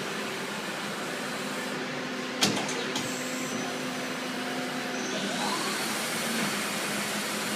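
Daewoo Puma 250BX CNC lathe running its test program with a steady machine hum. There is a sharp clunk about two and a half seconds in and a lighter one half a second later, then a rising hiss as the spindle speeds up from about five seconds in.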